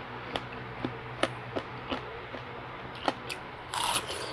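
Close-miked chewing of juicy watermelon: a run of small wet mouth clicks every few tenths of a second, then a louder juicy bite into a slice near the end.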